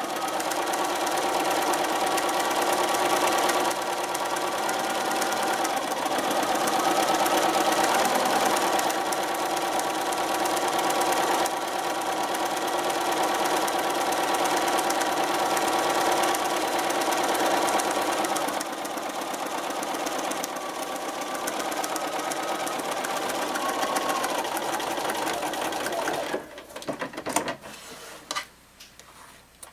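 Bernina sewing machine stitching a long straight seam, its motor speed rising and easing off a few times. It stops about 26 seconds in, followed by a few light clicks.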